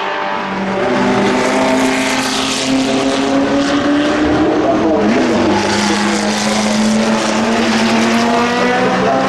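Porsche 917 racing car's air-cooled flat-12 engine running hard at high revs on the circuit. Its pitch holds steady, dips briefly about five seconds in, then climbs slowly again.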